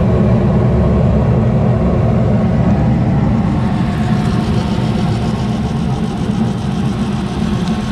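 Carrier gas rooftop package unit running with its new burners lit: a steady low rumble of the burners firing and the unit's draft motor and blower. The new heat exchanger is burning off its oils on first firing.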